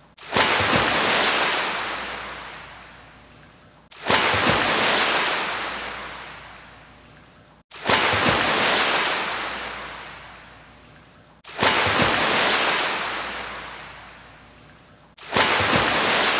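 Ocean waves breaking on a shore, five in a row at even intervals of about four seconds. Each wave sets in suddenly and washes away slowly.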